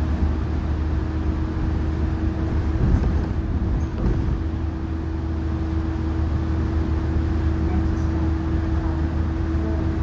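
Cabin ride noise of a 2019 New Flyer XN40 transit bus under way: its Cummins L9N natural-gas engine drones steadily under tyre and road noise from wet pavement, with a thin steady whine above it. There is a brief bump about three seconds in.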